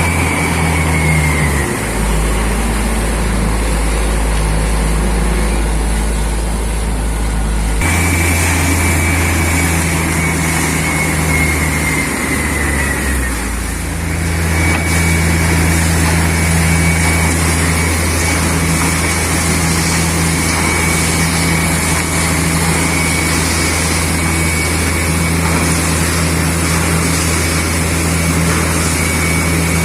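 Borewell drilling rig's diesel engines and air compressor running loud and steady, the engine note dropping and shifting a few times, with a high whine that slides downward.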